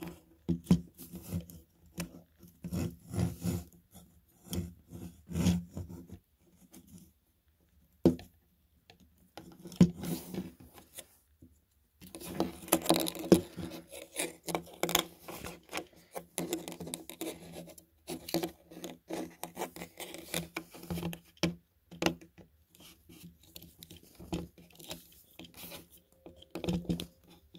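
Plastic parts of a Transformers Studio Series Skipjack action figure being handled and fitted together: irregular clicks, scrapes and rubbing, with a few short pauses.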